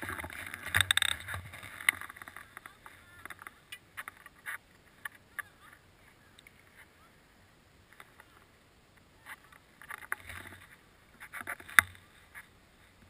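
Quiet, scattered clicks and scuffs of skis, poles and clothing as a skier stands and shifts on snow. The sounds are busier at the start and again towards the end, with one sharp click shortly before the end.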